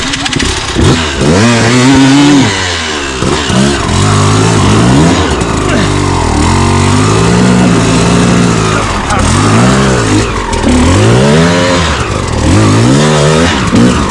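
Dirt bike engine revving up and down over and over, the throttle opened and closed about every second or two, with a steadier run in the middle.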